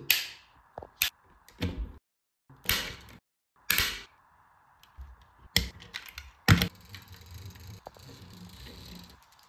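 Sharp plastic-and-metal clicks and knocks from handling a small die-cast toy car: its opening doors snapping shut and the model set down on a table. Near the end a faint, steady rolling noise as the toy's wheels are pushed along the tabletop.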